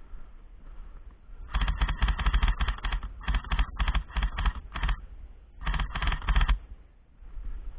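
Airsoft gun firing in rapid bursts: fast strings of sharp clicks, two long runs and then a shorter burst near the end.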